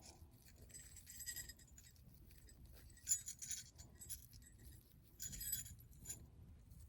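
Small jingle bells on a pipe-cleaner doorknob ornament jingling faintly in three short bursts, about two seconds apart.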